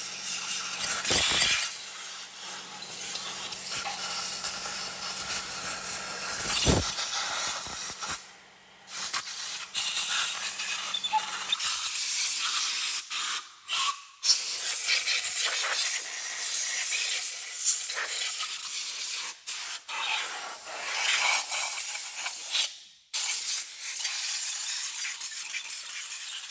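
Compressed-air blow gun blasting out the ports and passages of a bare aluminium cylinder head to clear dirt and metal shavings: a loud, continuous hiss, cut by about half a dozen brief pauses as the trigger is let go and squeezed again.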